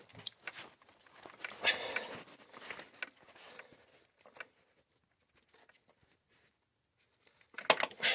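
Faint rustling and light clicks of hands working around an engine bay, then a few seconds of dead silence, then a few sharp clicks or knocks near the end.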